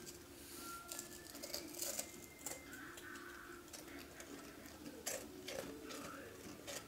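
Dry zwieback rusk being broken and crumbled by hand: scattered sharp, crisp clicks and crackles.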